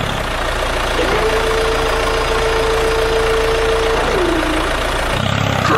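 Small engine of a homemade mini tractor wood-saw machine running steadily. A single steady tone is held for about three seconds in the middle.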